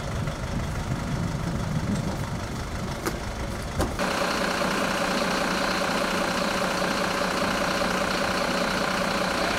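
Parked fire service vehicles with their diesel engines idling. About four seconds in there is a few light clicks, and the low rumble changes abruptly to a steadier, higher hum from an idling Mercedes-Benz Atego fire engine.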